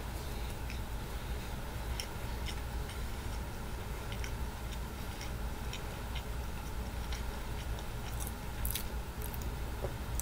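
A person chewing a mouthful of pizza slider close to the microphone: soft mouth clicks about twice a second over a steady low hum.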